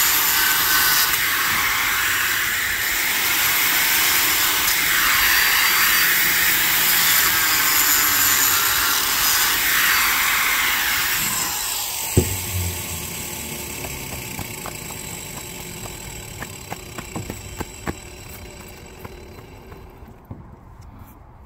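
Angle grinder with a masonry disc cutting out a cracked mortar joint in a concrete block wall, its pitch dipping and rising as the disc bites into the joint. About halfway through it is switched off with a knock and winds down, leaving a few light taps.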